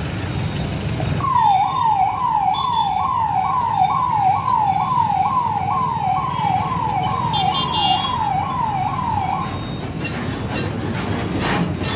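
Electronic vehicle siren sounding in fast repeating downward sweeps, about two a second, starting about a second in and stopping near the end, over the low rumble of heavy trucks in street traffic.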